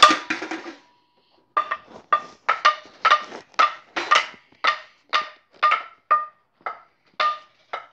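A metal baseball bat tapped lightly over and over, about two taps a second, each tap giving a short ringing ping that gets a little softer toward the end. A single louder knock with a brief ring comes right at the start.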